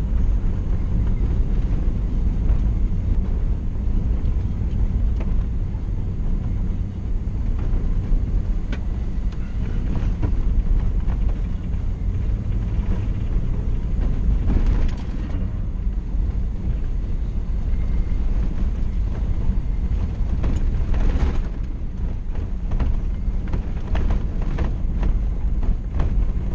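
Toyota Tundra pickup driving on a dirt road, heard from inside the cab: a steady low rumble of engine and tyres. Scattered small clicks and knocks come more often in the last several seconds.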